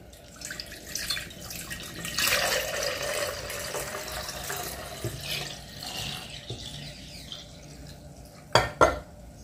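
Tap water running into a sink while hands are washed under it, with small splashes. Near the end come two sharp knocks in quick succession.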